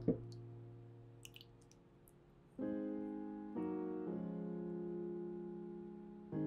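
Soft background piano music: a chord fades away over the first couple of seconds, then new sustained chords come in about two and a half seconds in and again a second later. A light click sounds at the very start.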